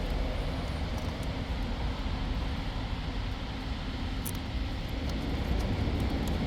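Steady low rumble of background noise, with a few faint short clicks scattered through it.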